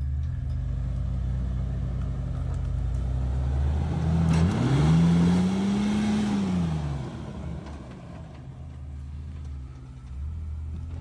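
Jeep Wrangler JK Unlimited's 3.6-litre V6 engine running low while rock crawling, revved up about four seconds in and easing back down over a couple of seconds.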